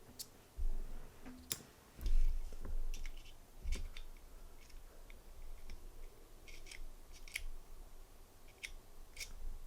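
Small metal tool clicking and scraping against a Zippo lighter's metal case while probing for a hidden screw it cannot reach, with a few dull bumps of handling.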